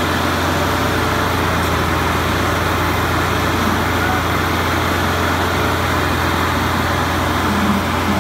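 Tractor diesel engines running hard and steady under heavy load: two tractors, one a Massey Ferguson 375, straining against each other on a chain in a tug-of-war, making a constant low drone.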